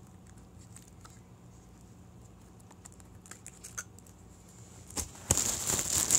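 Faint scattered clicks and taps of hands working the plastic battery cover of a small action camera, then about five seconds in a loud rustling of handling.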